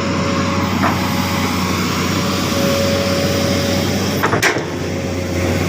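Heavy machine engine running steadily under load, with a faint steady whine above it. There is a short knock about a second in and a louder double knock at about four and a half seconds.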